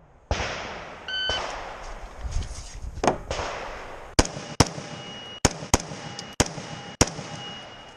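An electronic shot-timer start beep about a second in, then a string of rifle shots fired at an uneven pace, some in quick pairs. Steel targets ring after several of the later shots.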